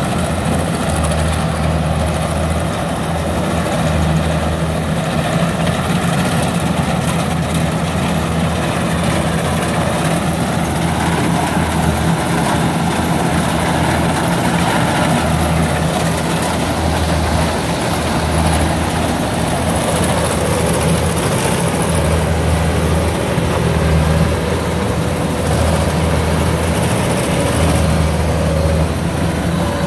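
Kubota DC-93 rice combine harvester running steadily close by, its engine and threshing machinery working as it cuts and threshes rice.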